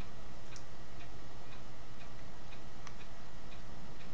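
Clock ticking evenly about twice a second over a steady low hum and hiss.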